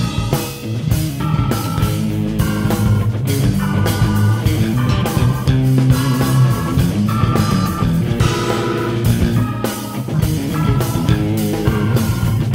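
Jazz-fusion band playing together: electric guitar, Nord keyboard, electric bass and drum kit.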